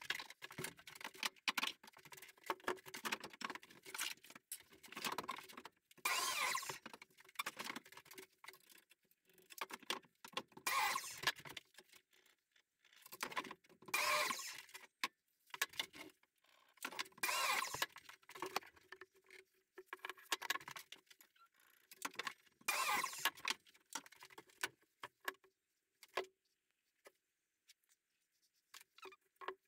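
Irregular hand-work noises: bursts of scraping and rubbing mixed with sharp clicks and knocks, with short pauses between them and a faint steady hum underneath. They thin out to a few scattered clicks near the end.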